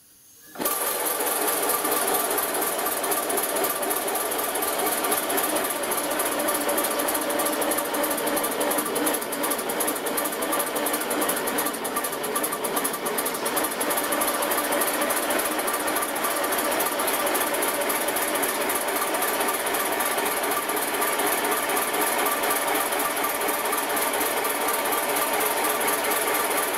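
5-inch gauge miniature steam locomotive running on compressed air on a rolling road, its wheels spinning on the bearing rollers: a rapid, steady mechanical chatter that starts abruptly about half a second in.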